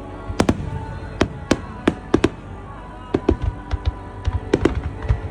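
Aerial fireworks going off in a quick, irregular series of sharp bangs, about a dozen, with music playing underneath.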